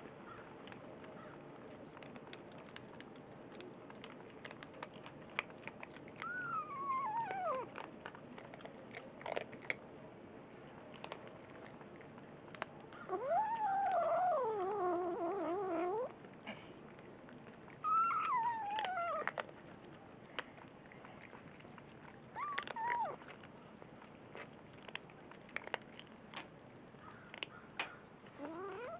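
Kittens growling over their dry kibble while they eat: several drawn-out calls that slide down in pitch, the longest lasting about three seconds near the middle. Between them are small sharp crunches of kibble being chewed.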